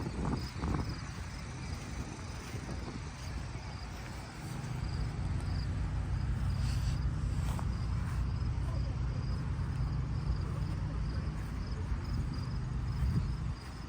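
A low engine runs steadily, coming up about four seconds in and falling away near the end, with a faint, evenly repeating insect chirp above it.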